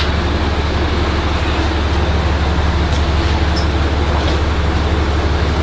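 Metro-North commuter train running through the station, a loud, steady low rumble with a few faint metallic ticks.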